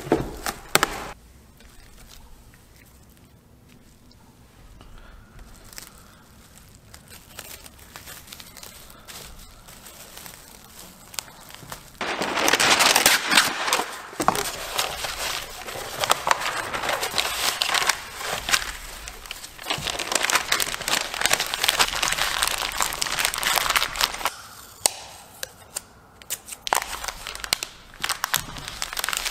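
Reynolds plastic-coated freezer paper being pulled off its roll and folded around a package of meat, a loud, dense crinkling and rustling that starts suddenly about twelve seconds in and runs for about twelve seconds. Before it there is only faint rustling.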